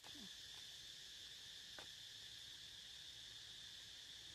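Faint, steady high-pitched insect chorus droning without a break, with a soft click at the start and another about two seconds in.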